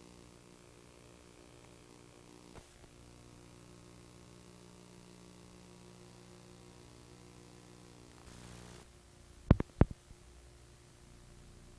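Steady low electrical hum with faint hiss, broken about nine and a half seconds in by two sharp, loud clicks a fraction of a second apart.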